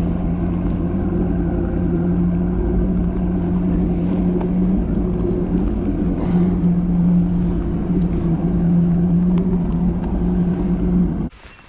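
Boat motor running at a steady speed, with a constant low hum and rumble, then stopping abruptly near the end; a single sharp click follows.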